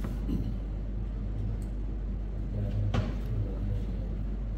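Steady low hum and rumble of room background noise, with a faint click about three seconds in.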